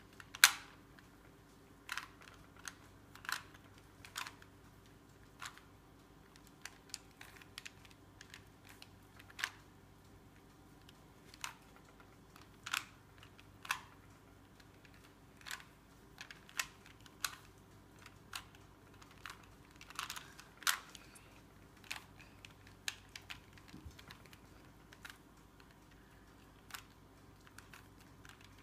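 Rubik's Cube being turned by hand: irregular plastic clicks and snaps, about one or two a second, as the layers are twisted.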